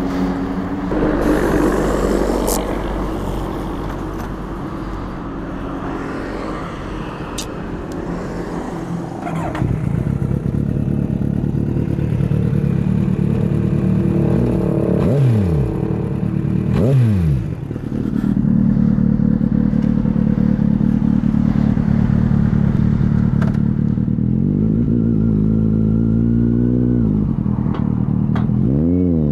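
Kawasaki Z800 inline-four through a Scorpion aftermarket exhaust, ridden on the road. The engine runs at a steady note, and its revs drop sharply twice around the middle. Near the end it revs up through a gear and drops again as it shifts.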